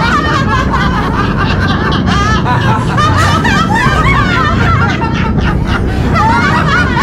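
Several people laughing at once, their laughs overlapping continuously, over a low steady hum.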